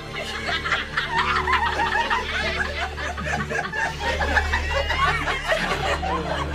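Several people laughing and chuckling together, over a low, steady background tone.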